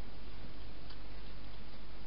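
Steady hiss and low hum with a few faint ticks of a wild hedgehog eating from a bowl, one clearer click a little under a second in.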